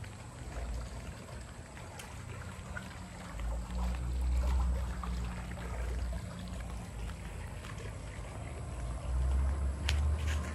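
Wind buffeting the microphone in uneven low rumbles, strongest a few seconds in and again near the end, over a faint outdoor hiss.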